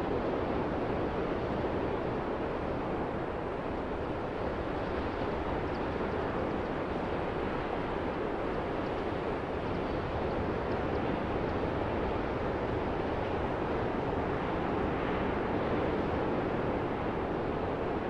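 Ocean surf breaking and washing onto the shore, a steady rushing noise with no single wave standing out.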